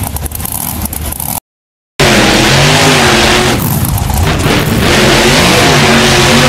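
Monster truck engine revving hard, its pitch rising and falling repeatedly. The sound cuts out completely for about half a second near the start, then comes back loud.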